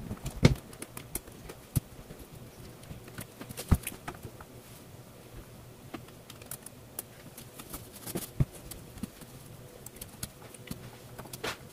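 Irregular small clicks and taps of screws being handled and driven with a hex screwdriver into a model nitro engine's metal starter plate.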